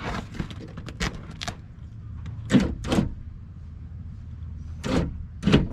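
A series of short clunks and knocks from the window and door-handle mechanism inside a 2004 Mustang GT's door as it is handled with the panel off, some louder with a brief metallic ring, over a steady low hum.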